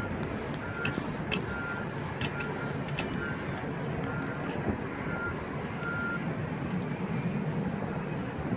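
Low rumble and wind noise aboard a Skyfari aerial tram gondola, with scattered clicks and rattles. Over it a vehicle's reversing alarm beeps about once a second, stopping about six seconds in.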